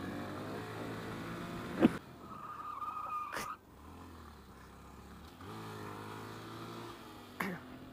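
Honda Grom's 125 cc single-cylinder engine running, easing off about two seconds in and picking back up about five and a half seconds in. Three sharp knocks stand out, the first and loudest about two seconds in, with a thin high squeal for about a second after it.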